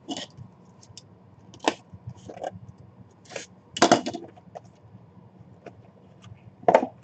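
Hands handling a small cardboard puck box on a table: a handful of sharp knocks and scuffs of cardboard, the loudest about four seconds in.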